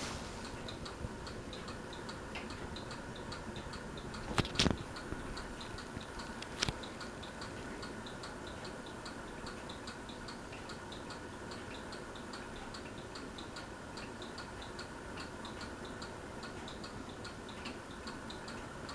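Regency Oasis ceiling fan running on medium with a faint steady motor hum, a motor the owner calls noisy. A light tick repeats about twice a second, with two sharper clicks about four and a half and six and a half seconds in.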